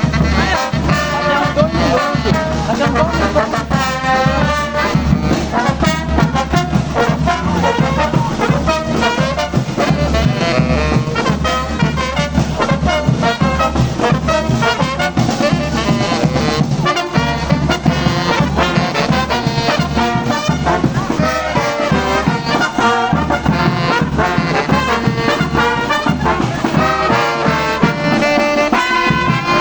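Brass orchestra of trombones and trumpets playing a loud, continuous tune.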